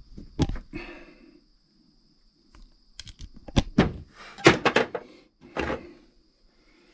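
Metal hand tools being picked up and set down among others: a scatter of short clinks and knocks, the busiest cluster about three to five seconds in.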